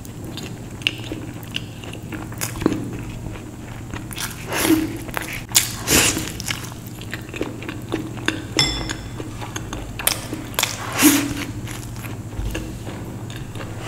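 Close-miked eating: a person biting and chewing food, with crunchy clicks throughout and a few louder bites about five, six and eleven seconds in.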